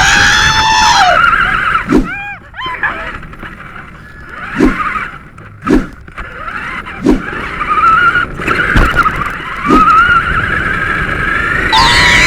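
Radio-controlled car's electric motor whining, its pitch rising and falling as it speeds up and slows, with tyre skids and a few sharp knocks.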